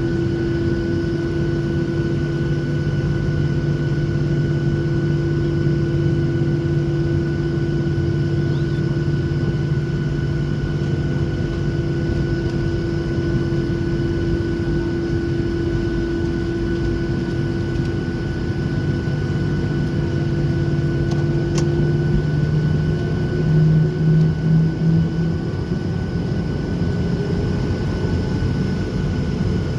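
Boeing 737-800's CFM56-7B jet engines running at idle, heard inside the cabin: a steady hum with several held whining tones. About 22 seconds in the tones shift and waver briefly, as the aircraft starts to taxi.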